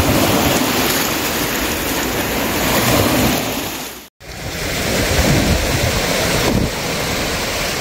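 Small ocean waves breaking and washing up on a sandy beach, a steady rush of surf, with wind buffeting the microphone. The sound drops out for a moment about four seconds in, then the surf goes on.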